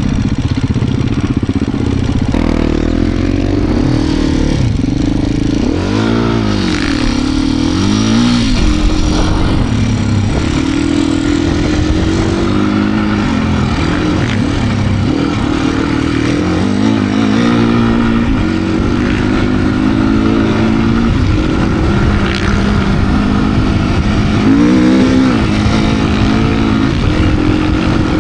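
A 2025 Beta RR390 X-Pro's single-cylinder four-stroke engine, heard from on the bike, its revs rising and falling over and over with constant throttle changes while it works through deep sand.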